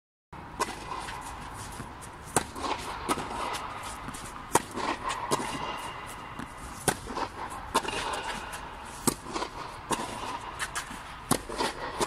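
Tennis rally on a clay court: sharp racket-on-ball hits and ball bounces about every second, from both ends of the court, with shoes scuffing on the clay in between.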